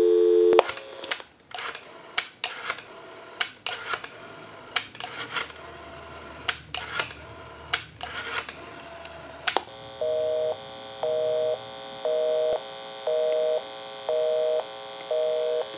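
Dial tone on a Western Electric 202 rotary desk telephone's line stops about half a second in. Then come several seconds of sharp clicks as the rotary dial is turned and spins back for each digit. From about ten seconds in the line gives a busy signal, a two-note tone beeping on and off about once a second, because the number dialled is the caller's own.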